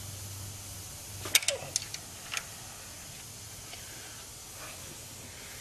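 A few sharp metallic clicks from a box-end wrench on the rocker-arm valve adjuster lock nuts of a 1996 Honda Civic engine: a quick cluster about a second and a half in and one more a second later, as the lock nuts are broken loose to set the valve clearance. A faint steady hum runs underneath.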